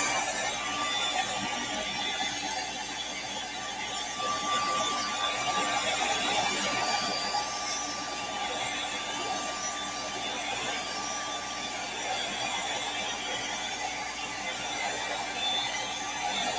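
Handheld hair dryer blowing steadily with a thin motor whine, drying and heat-setting fresh airbrushed paint on a crankbait.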